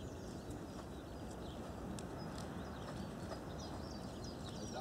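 A horse trotting, its hoofbeats falling on rubber-chip arena footing, with small birds chirping.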